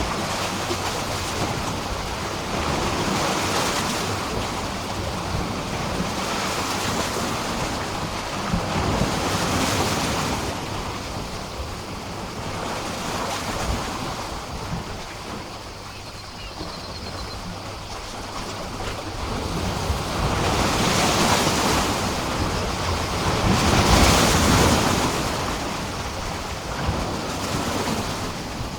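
Small sea waves washing and splashing against a pier, the surf swelling and easing every few seconds, with the strongest surges about three quarters of the way through.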